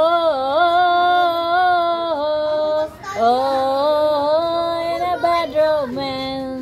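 A woman singing an unaccompanied melody in long held notes with small dips in pitch, breaking off briefly about halfway through.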